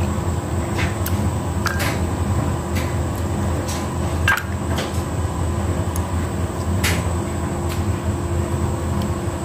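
Steady low machine hum, like a running kitchen appliance or fan, with a few short light clicks as a plate and bowl are handled.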